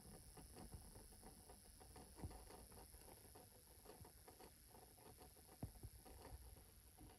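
Near silence, with faint scattered light clicks and taps, two of them a little louder, a couple of seconds in and again near five and a half seconds.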